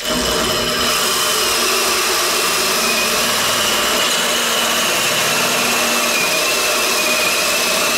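Hole-saw tube notcher cutting a notch in a 6061 aluminium tube: a steady machine drone with a high whine from the saw teeth in the metal.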